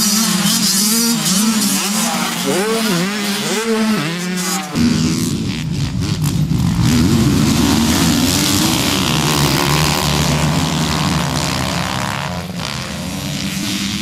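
Dirt bike engines revving up and down, their pitch rising and falling as the bikes ride the jumps. About five seconds in it cuts abruptly to a denser, rougher sound of several bikes running at once.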